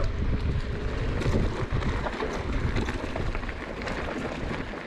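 Wind buffeting the microphone as a heavy low rumble, with scattered small clicks and rattles. It eases off a little near the end.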